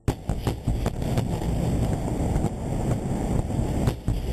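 Airstrike explosion: a sudden blast right at the start, then a continuous low rumble with many sharp crackles and wind buffeting on the microphone.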